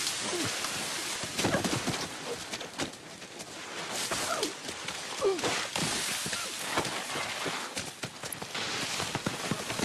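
Rocks thrown at a person, landing in a rapid, irregular run of thuds and clatters, with short cries and gasps between the hits over a steady hiss.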